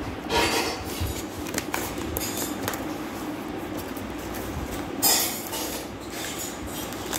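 A cardboard parcel sealed with packing tape being cut with scissors and pulled open by hand, heard as rustling and tearing in short bursts, the loudest about five seconds in, over a steady low hum.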